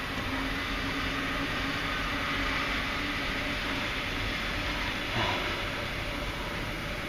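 Steady rumble and hiss inside the cab of a Volvo A40G hauler, the machine running while it sits, with a faint low hum that fades out a little past halfway and a small brief knock about five seconds in.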